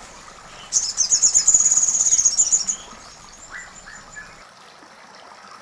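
A bird giving a rapid, high-pitched trill of fast repeated notes lasting about two seconds, followed by a few faint short chirps.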